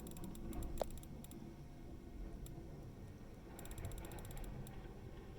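Two short runs of rapid, fine mechanical clicking from a camera's zoom lens motor, one right at the start and one about three and a half seconds in, over a low rumble of blizzard wind heard through a window.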